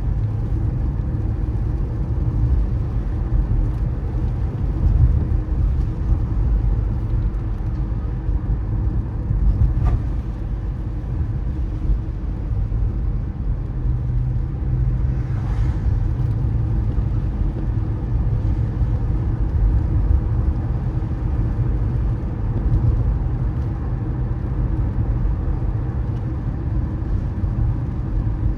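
Car driving on a wet road: a steady low rumble of tyres and engine, with a brief hiss about halfway through.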